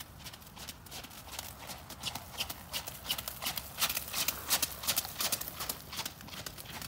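Horse trotting on a wet sand arena surface: a steady run of hoofbeats, loudest as it passes close by about four seconds in, then fading as it moves away.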